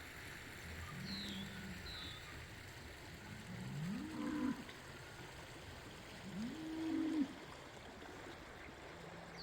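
Cattle mooing three times: a short call, then two longer calls that rise in pitch and are louder, over a steady rush of running water. A small bird chirps twice near the start.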